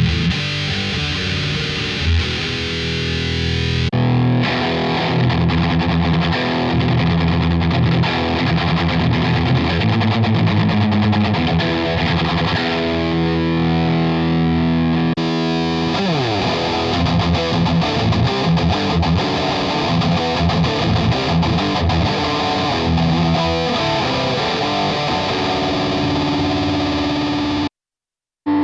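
Electric guitar played through a Digitech RP1000 multi-effects pedalboard with a distorted tone. The sound changes character about four seconds in and again about halfway, where there is a falling pitch glide, and it cuts out briefly near the end.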